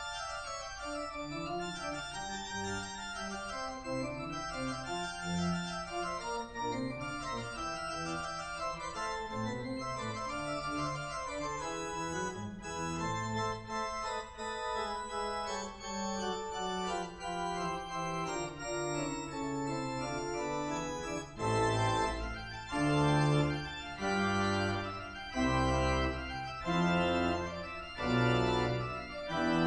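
Church organ playing Baroque music in several independent lines. About two-thirds of the way in it grows louder, with fuller detached chords and heavy bass notes.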